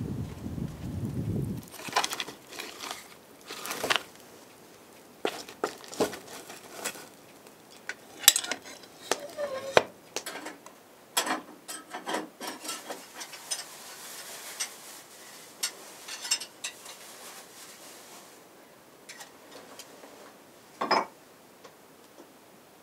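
Dishes and bowls being handled and set down on a table: a series of light clinks and knocks, with one louder knock near the end. A low rumble cuts off in the first two seconds.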